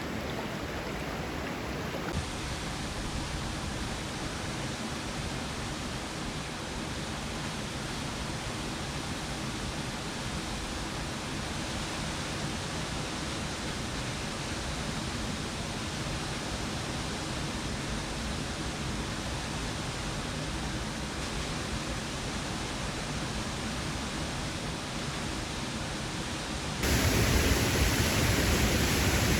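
Steady rush of a mountain creek's flowing water and falls, a constant hiss with no breaks, stepping up clearly louder near the end.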